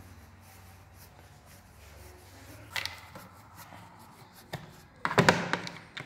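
Screws being worked out of a suitcase's spinner-wheel mount from inside the hard shell with a screwdriver: faint scraping, a sharp knock about three seconds in, and a louder burst of knocking and rattling about five seconds in.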